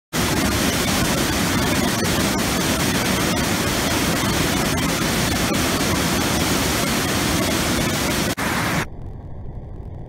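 Waterfall pouring over rocks: a loud, dense, steady rush of white water. Near the end it cuts suddenly to a quieter, duller rush of rapids.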